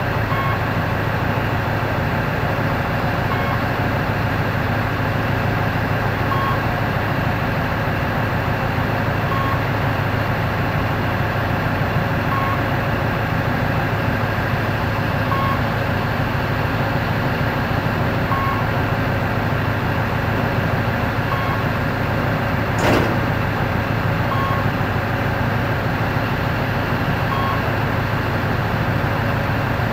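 Heavy machine engine running steadily with a low hum as the swing-wheel assembly of an SW300 swing-wheel low loader closes, with a short high warning beep about every three seconds. There is one sharp click about 23 seconds in.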